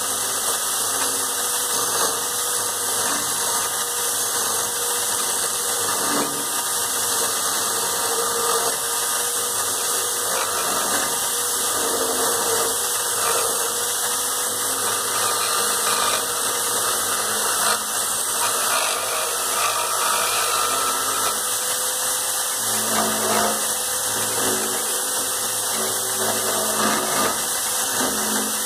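Electric drill clamped in a vise running steadily, spinning a wooden blank while a hand chisel is held against it to turn it like a lathe, the blade scraping the rotating wood.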